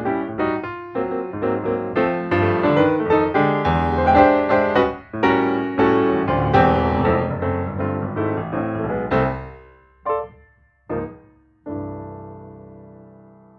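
Piano music playing a quick, busy run of notes, which breaks off about nine seconds in into three separate chords; the last chord is left to ring and fade away as the piece ends.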